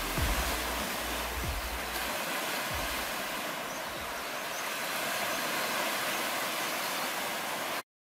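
Ocean surf washing steadily onto the beach, with low wind rumble on the microphone during the first two seconds. The sound cuts off abruptly near the end.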